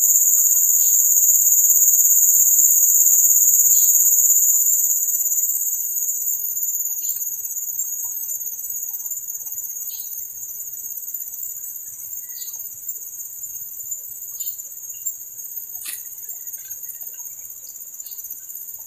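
Steady high-pitched insect chorus, loudest in the first few seconds and easing somewhat after. Short faint chirps come every second or two, and a single click sounds near the end.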